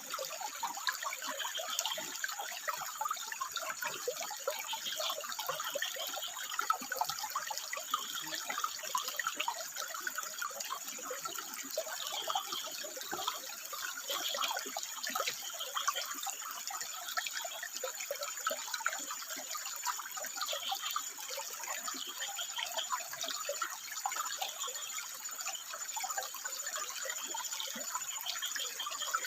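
Water trickling and splashing over rocks: a steady, busy bubbling that keeps on without pause.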